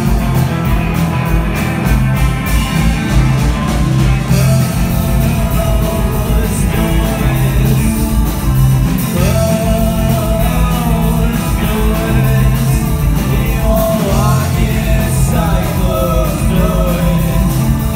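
Rock band playing live: electric guitars, bass, keyboards and a drum kit, with a lead vocal singing over them in the second half.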